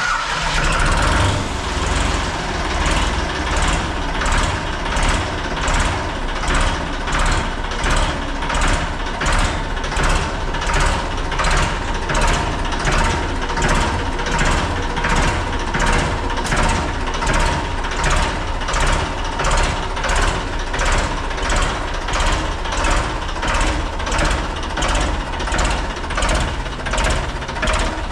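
Ford 3600 tractor's three-cylinder diesel engine running as the tractor is driven slowly forward, with a regular pulse in the sound roughly every three-quarters of a second.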